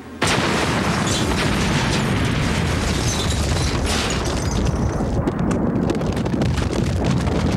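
A big explosion, a cartoon sound effect of a nitro-loaded car blowing up, going off suddenly about a quarter second in. It runs on as a long, heavy rumble of blasting and tumbling rock.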